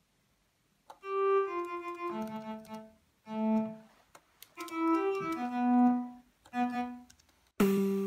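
Synthesized electronic tones in short phrases of held notes and chords, separated by brief pauses. They start about a second in, and a louder sustained chord enters near the end.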